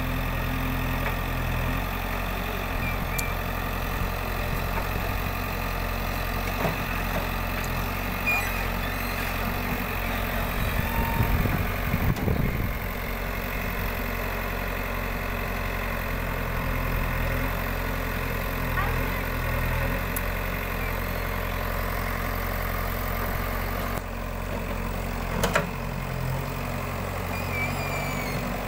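Diesel engine of a JCB digger running steadily near idle, briefly louder about halfway through, with a single sharp knock near the end.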